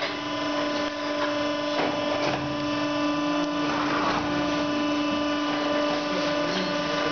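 Box-opening machine running steadily with a constant hum, as a hydraulic cylinder pushes a metal box through its cutting discs. A few knocks and scrapes of metal come through at intervals, loudest about four seconds in.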